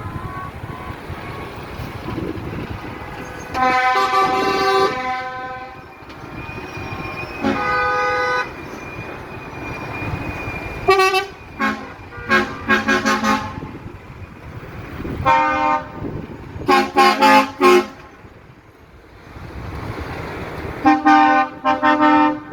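Passing road vehicles honking their horns over the rumble of traffic: two longer blasts, then repeated bursts of short toots.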